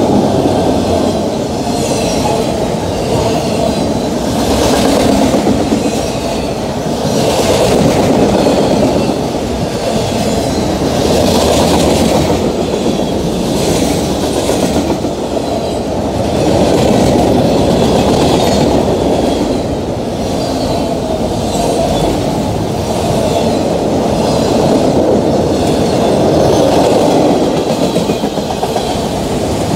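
Freight train passing close by at speed: the steady rumble and clatter of steel wheels on the rails, rising and easing every few seconds as autorack, hopper and tank cars roll by.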